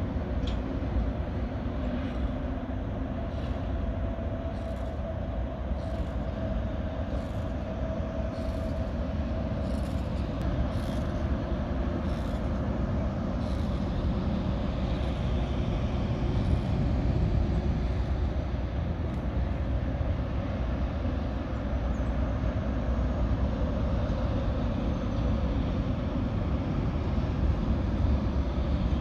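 Steady low mechanical rumble that runs without a break, with a faint steady hum over it for the first several seconds.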